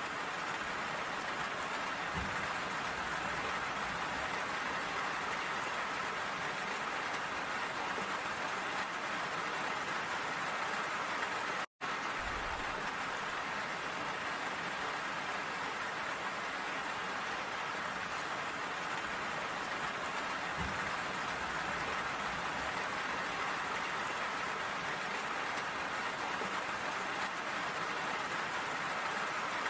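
Steady rain falling, drops pattering and splashing on a metal railing. The sound cuts out for a moment about twelve seconds in, then carries on unchanged.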